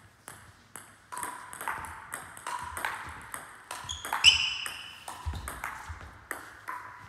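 Table tennis ball clicking: two lone bounces in the first second, then from about a second in a rally of ball-on-table and ball-on-bat hits at about two a second. The loudest moment, a little past halfway, is a hard hit followed by a brief high squeal.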